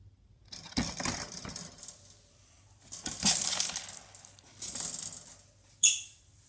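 Rattling and clinking as a pet rabbit eats from a small ceramic bowl in its wire cage. There are four bursts, the last a short, sharp ringing clink near the end.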